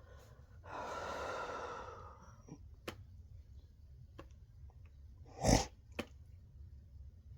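A long voiced yawn that swells and trails off over about a second and a half, one of a run of uncontrollable yawns. A few faint clicks follow, and about five seconds in there is a short, loud burst of noise, the loudest sound here.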